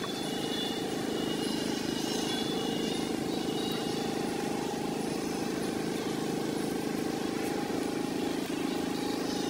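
Steady outdoor background hum, with a few faint, short high chirps.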